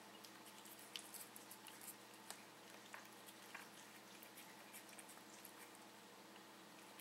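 Siamese cat chewing a freshly caught meadow vole: faint, irregular wet clicks, thickest in the first few seconds and thinning out later, over a low steady hum.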